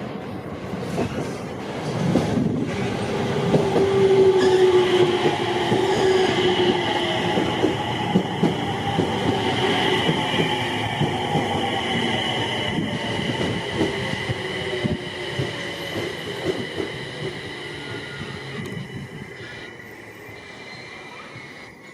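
485-series electric train moving through the station, wheels knocking over the rail joints under a high, steady squeal. It swells in the first few seconds, then fades slowly as the train draws away.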